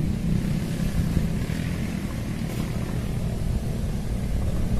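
Wind buffeting the microphone: a steady, gusty low rumble.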